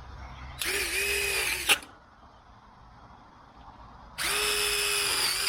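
Cordless drill driving self-tapping screws into a metal gate frame: two runs of about a second each with a steady whine, the first ending in a sharp click.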